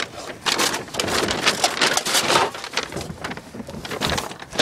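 Bottles and cans clattering and a bag crinkling as they are pulled out of a recycling bin: a dense, irregular run of knocks and rustles.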